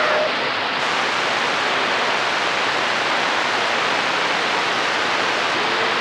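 CB radio receiver putting out steady static hiss, the open-band noise heard when no station is coming through; the hiss turns a little brighter just under a second in.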